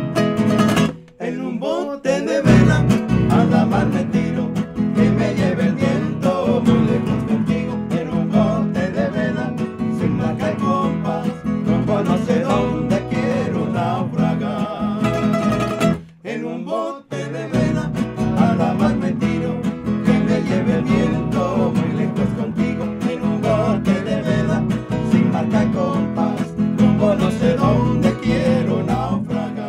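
Acoustic guitars of a romantic trio playing live, a strummed rhythm under a plucked lead line, with two brief breaks in the playing about a second in and about sixteen seconds in.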